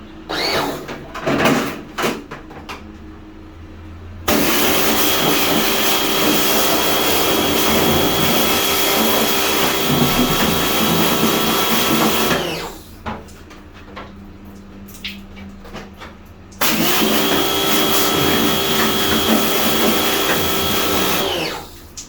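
An electric motor-driven machine with rushing air, of the kind used in air-conditioner servicing, runs in two bursts. It switches on about four seconds in, runs steadily with a hum and a high whine for about eight seconds, then winds down. It starts again about four seconds later, runs for about five seconds and winds down again. A few knocks and clatters come before the first run.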